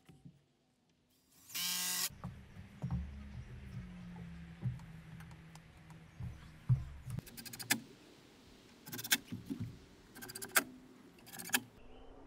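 Cordless drill/driver running in a short burst about a second and a half in, then a lower steady motor hum for a few seconds. Several sharp knocks follow in the second half.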